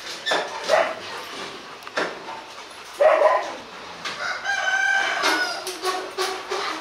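A rooster crowing, with one long held note about two thirds of the way through, and shorter dog vocalisations around it.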